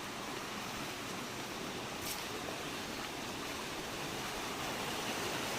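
Steady rushing noise of falling water from a waterfall, a constant even hiss that swells slightly near the end.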